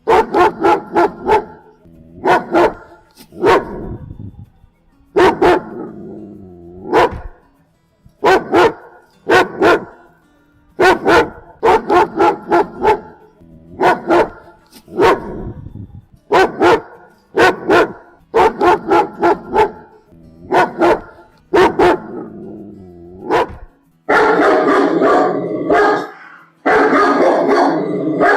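German Shepherd barking angrily in quick volleys of two to four loud barks with short pauses between. Near the end it breaks into a continuous stretch of barking and growling with no pauses.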